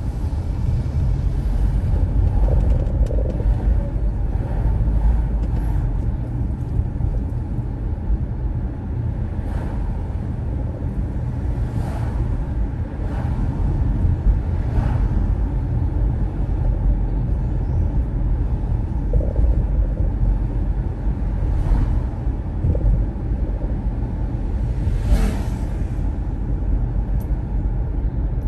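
A car driving along a road: a steady low rumble of engine and tyres, with a few brief faint noises over it.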